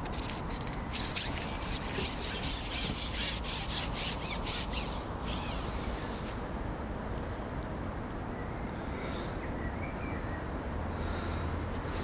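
Fishing pole being handled, its sections sliding and rubbing with a rapid scraping rustle for about the first five seconds, then easing off.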